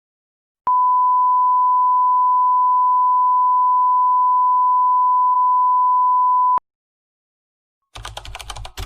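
A steady electronic beep tone at one pitch, held for about six seconds, of the kind used as a censor bleep. Near the end, about a second of rapid crackling.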